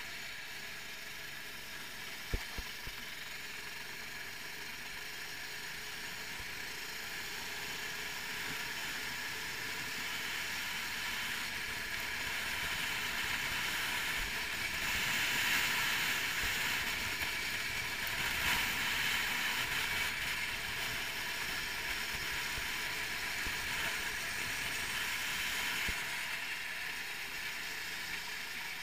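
390cc kart engine running at speed, heard from on board together with chassis rattle and rushing air. It grows louder for several seconds midway, with a single sharp knock about two seconds in.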